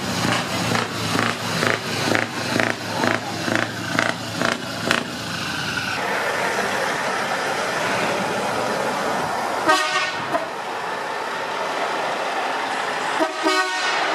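Truck horns tooting in a rapid series of short blasts, about three a second, for the first few seconds. Then the steady running of a passing lorry, with a short horn blast around ten seconds in and another near the end.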